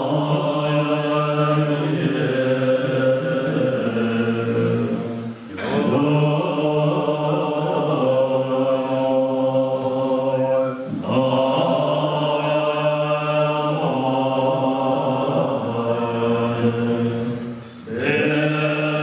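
Tibetan Buddhist prayers chanted in unison by a group of low male voices, in phrases of about five to six seconds with brief breaks between them.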